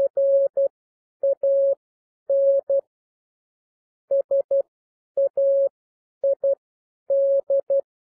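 Computer-generated Morse code (CW) at 12 words per minute: a single steady mid-pitched tone keyed on and off in short dots and longer dashes, grouped into letters with clean silent gaps. It spells out common words, here 'can' and the start of 'said'.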